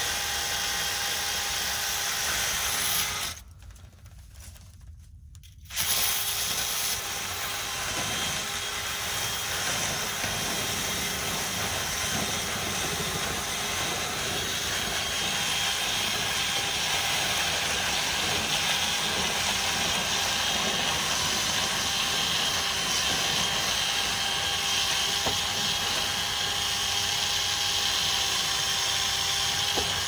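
Power drill running steadily, spinning a cleaning brush through a clogged dryer vent duct to clear the lint blockage. The noise drops away about three seconds in and comes back about two seconds later.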